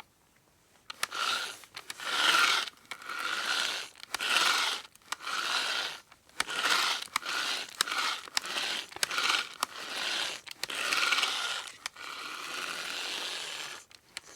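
Manual hand drill being cranked in short bursts of roughly half a second to a second, the bit rasping and the mechanism whirring, with brief pauses between bursts. It starts after about a second of near silence, and near the end there is a longer unbroken run of about two seconds.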